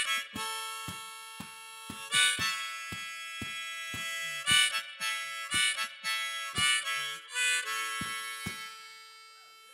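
Harmonica on a neck rack played over strummed acoustic guitar with a steady beat, ending a blues song. The strumming stops near the end and the final harmonica chord fades out.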